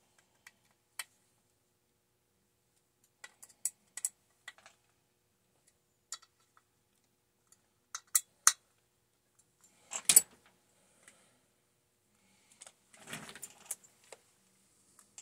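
Small hand tool and metal parts clicking and tapping against a chainsaw during assembly: sparse sharp metallic clicks, with a louder clatter about ten seconds in and a brief rustle a few seconds later.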